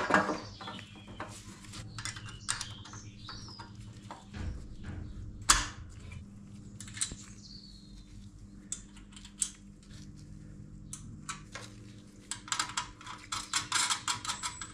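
Small metal parts being handled and fitted into a steel tractor dash panel on a wooden bench: scattered clicks and clinks of a switch body, nuts and washers, with one louder knock about five and a half seconds in and a quick run of clicks near the end.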